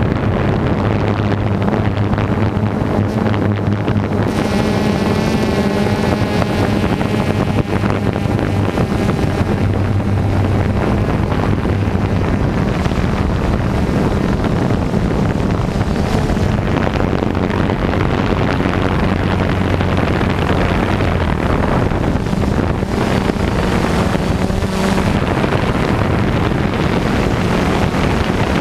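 Harvest machinery engine running steadily with a constant low hum, and wind buffeting the microphone.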